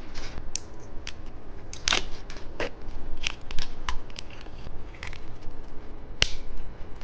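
Plastic candy packaging crinkling and clicking as it is handled and unwrapped, in short, sharp, irregular crackles.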